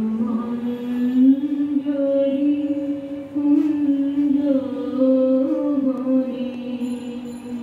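A singing voice chanting in long held notes, the pitch stepping up and down slowly every second or two.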